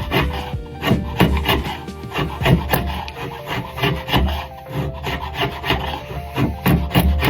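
Red deer antler knife handle being sanded by hand: quick, uneven scraping strokes several times a second, with background music underneath.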